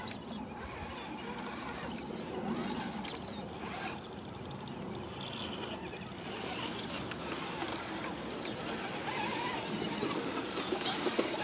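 Radio-controlled scale rock crawler trucks driving slowly over rock and dry grass, their small electric motors and gearboxes whirring faintly.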